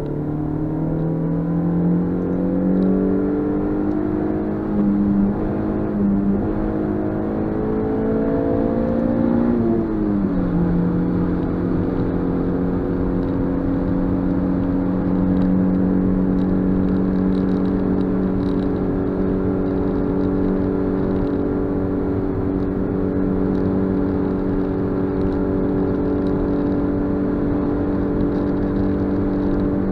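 Suzuki Swift Sport's 1.6-litre four-cylinder engine heard from inside the cabin, pulling under load with its note climbing for about ten seconds. The pitch then drops quickly at an upshift and holds steady for the rest, the car cruising in the higher gear.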